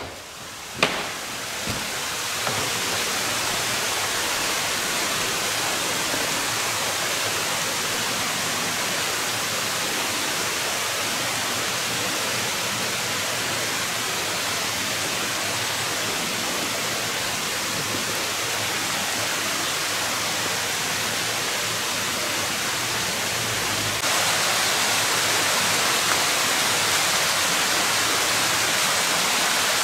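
Steady, even rushing noise with no pitch, which grows slightly louder near the end, and a single click about a second in.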